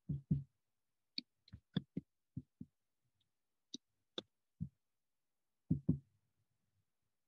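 Mouse clicks, about a dozen sharp single clicks at irregular intervals, some in quick pairs.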